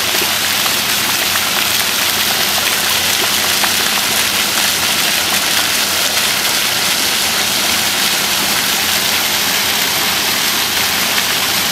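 Splash-pad fountain jets spraying up from the paving and falling back onto it: a steady hiss and patter of water.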